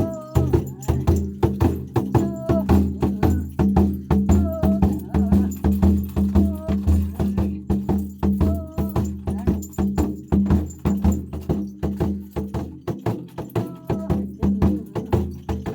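Tuvan-style folk music: a steady low drone with short, higher melodic phrases coming back every couple of seconds, over a fast, even clicking percussion rhythm.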